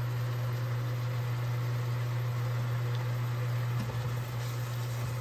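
Steady low hum of a running portable electric cooktop, with a few light scrapes of a spoon in the pan about four seconds in.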